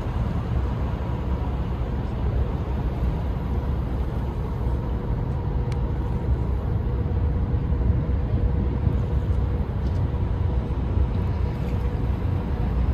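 NYC Ferry boat under way on the East River: a steady low rumble of engines, wind and water, with a faint steady hum above it.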